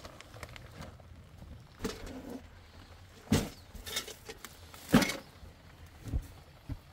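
About five irregular sharp knocks, the loudest about three and a half and five seconds in, over a faint low steady hum.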